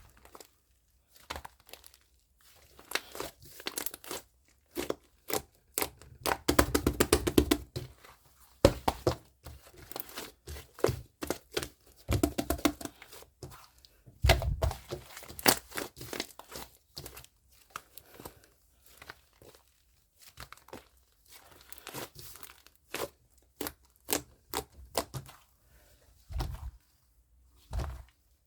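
Fluffy clay slime being squeezed, stretched and pressed by hand, giving irregular crackling, tearing and popping sounds with a few soft thuds. Denser crackling runs about six to eight seconds in and again near twelve seconds.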